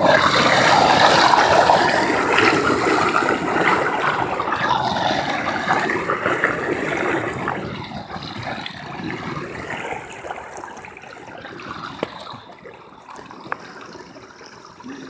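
Floodwater rushing and splashing as a hand pulls wet leaves out of a clogged street drain. It is loudest at first and slowly dies down over the second half.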